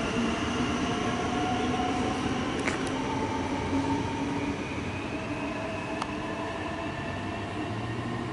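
Electric suburban train moving through the station, its motor whine climbing in pitch in several steps over steady running noise. Two short sharp clicks come about a third of the way and three quarters of the way in.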